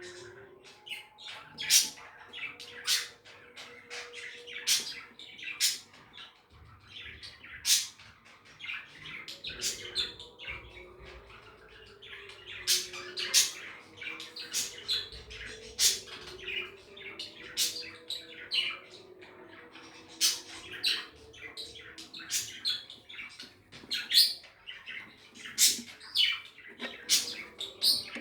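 Budgerigars chirping and squawking: many short, sharp calls in quick, irregular succession, over a softer warbling chatter.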